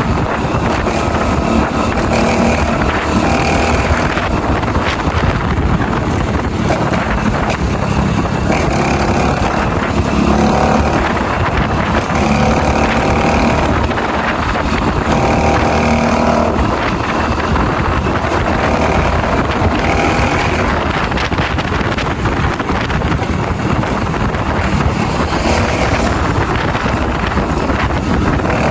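Honda Pop 110i's small single-cylinder four-stroke engine running under way, its revs rising and falling every few seconds, with wind noise on the microphone.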